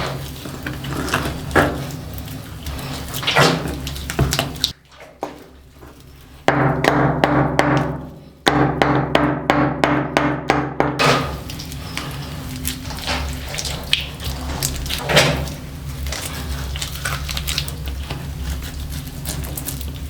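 Knocks and thuds of hand work on a shelter build, coming at irregular intervals, with a quick even run of strokes, about five a second, around the middle.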